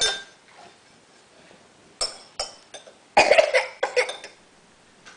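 A baby coughing: a run of several short coughs about three seconds in, after a few softer single sounds.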